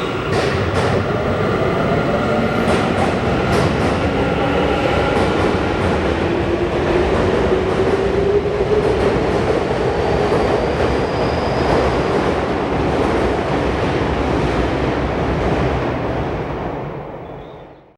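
Electric commuter train pulling out of a station: its motor whine rises in pitch as it speeds up, and the wheels clack over rail joints in the first few seconds. The sound fades out near the end.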